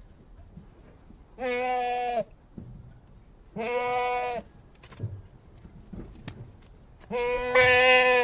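Goat bleating: three long, level-pitched bleats of about a second each, separated by short pauses.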